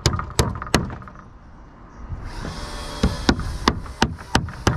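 Claw hammer driving nails into new pine roof boards: three blows, a pause of about two seconds, then about six quicker blows.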